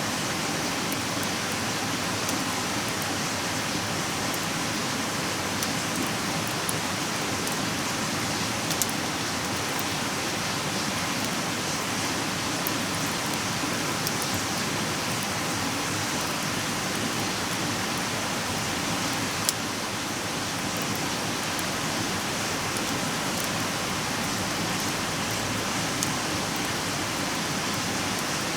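Wood campfire burning in a compact fire stand: a steady hiss with a few sharp crackles and pops scattered through it.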